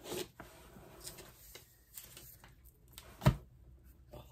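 Paper catalogs and packing being handled and rustled in a cardboard shipping box, with light clicks and one sharp knock about three seconds in.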